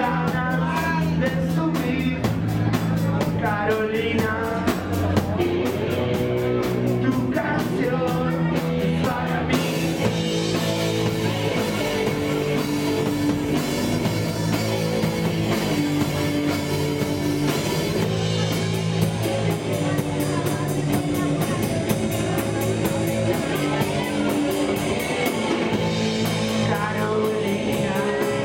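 Live punk rock song played by a band with electric guitar and drums under a male lead singer. He sings through the first part; about ten seconds in the singing drops out and the band plays on with a brighter, fuller sound. The singing returns near the end.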